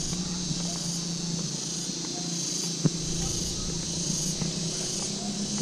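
Steady high-pitched insect chorus in tropical garden trees, over a steady low hum, with a single sharp tick a little before the middle.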